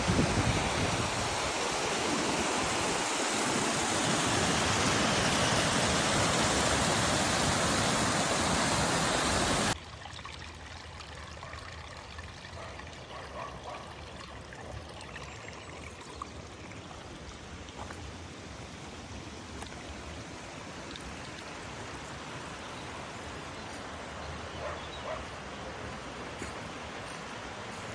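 Waterfall water rushing loudly and steadily, cutting off abruptly about ten seconds in to a much quieter steady flow of water with a few faint ticks.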